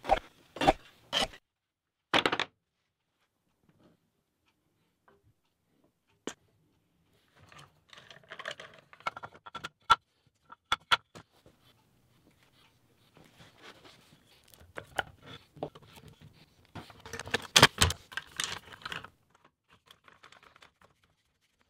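Wooden blocks and parallel bar clamps being handled on a workbench: a few sharp knocks in the first couple of seconds, then scattered clicks and rattles as the clamps are set and tightened.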